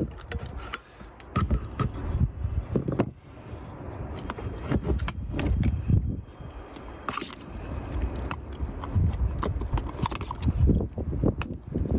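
Irregular knocks, taps and scrapes of body filler being mixed with a spreader.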